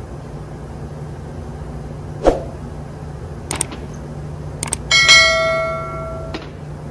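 A dull knock, a few light metal clicks, then a steel part struck with a clank that rings like a bell for about a second and a half, all over the steady drone of engine-room machinery.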